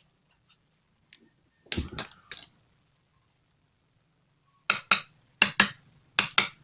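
Hammer tapping a motorcycle's magneto flywheel down onto the crankshaft: sharp metallic clinks in quick pairs, three pairs starting about two-thirds of the way in, after one duller knock about two seconds in.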